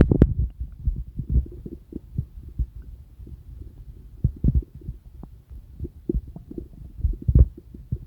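Stomach and intestinal gurgling (borborygmi): low rumbling with irregular, unevenly spaced pops and squelches. It is loudest in the first second, then quieter, with one sharper gurgle near the end.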